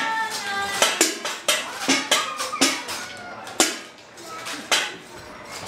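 Improvised drum kit made from junk containers being banged, with irregular clanging strikes about two a second, some ringing briefly.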